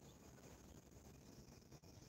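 Near silence: faint steady background noise.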